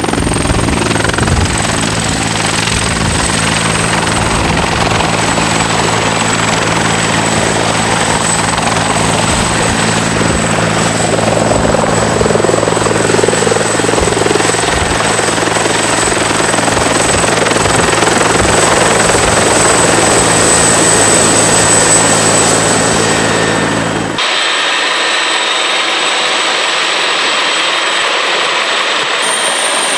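Agusta-Bell AB 412 helicopter running with its rotors turning: a steady low rotor drone under a high, continuous turbine whine from its twin turboshaft engines. About 24 seconds in, the low rotor sound drops away abruptly, leaving the engine noise and whine.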